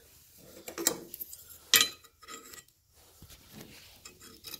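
Light metallic clinks and handling knocks as a metal square is set against a belt grinder's steel platen and work rest, with one sharper tap near the middle.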